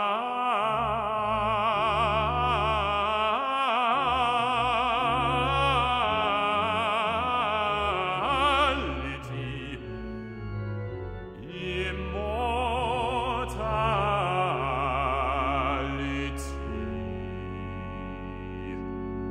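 Bass-baritone singing long sustained notes with wide vibrato over held organ chords, breaking off for about two seconds midway before singing on. Near the end the voice stops, leaving the organ chord sounding.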